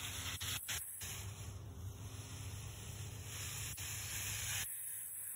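Water spraying from a garden hose spray nozzle onto soil and seedlings, a steady hiss that breaks off briefly twice in the first second and stops near the end.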